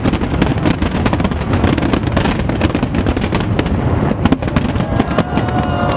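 Fireworks display going off continuously: many sharp cracks and bangs in quick succession over a steady low rumble of bursting shells, with faint whistles near the end.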